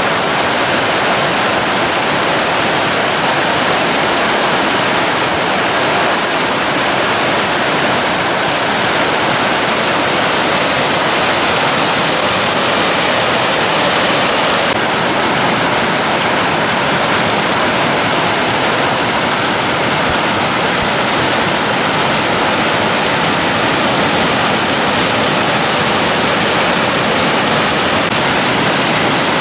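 Fast mountain river rushing over rocks in white-water rapids, a loud steady roar of water. The river runs high with spring snowmelt.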